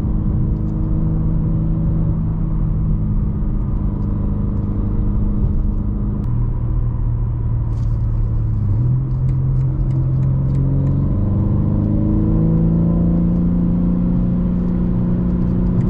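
BMW M3 G80's stock S58 3.0-litre twin-turbo straight-six, heard from inside the cabin, pulling steadily through the gears of its manual gearbox. The pitch drops about six seconds in at an upshift, then from about eleven seconds it climbs steadily as the car accelerates in a lower gear.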